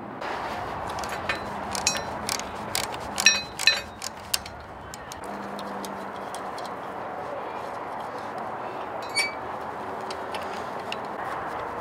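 Sharp metallic clicks and clinks of steel wrenches on the Hi-Lift jack's safety shear bolt as it is loosened, a quick irregular series in the first few seconds and a single clink near the end, over a steady background hiss.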